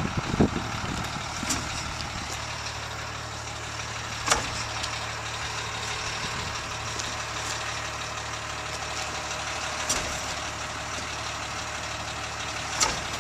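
Steady machine hum, with a few sharp clicks or taps scattered through it.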